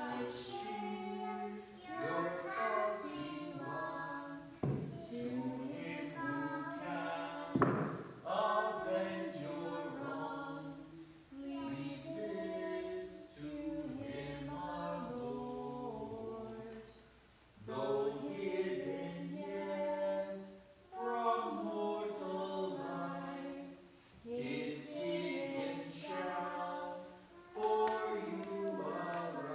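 A choir singing in phrases with short pauses between them. Two thumps stand out, about five and eight seconds in.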